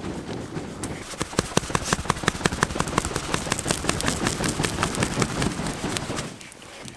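Dry leaves and pine needles flaring up on campfire embers, crackling rapidly and irregularly over a low rushing noise as the fire is rekindled. Both die down about six seconds in.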